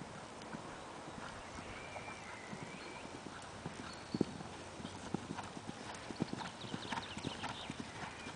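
A horse's hooves thudding on a sand arena as it canters, the hoofbeats growing louder and closer from about halfway, with one heavy thud about four seconds in, as it comes up to and over a small jump.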